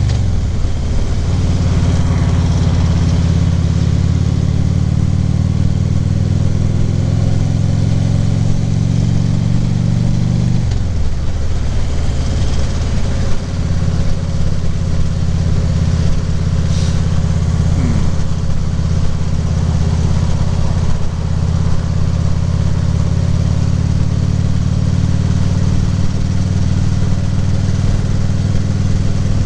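Harley-Davidson Ultra Limited V-twin engine running steadily on the road. Its note dips at the start, dips again about ten seconds in and rises back a few seconds later, as when the rider slows and then picks up speed again.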